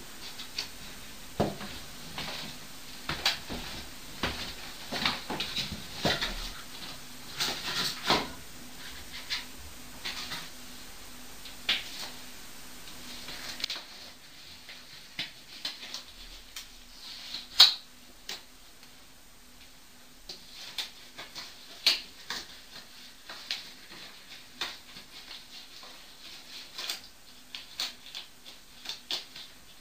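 Irregular sharp clicks and knocks, some single and some in quick clusters, with the loudest knock a little past halfway. A faint steady hum runs under the first half and then fades out.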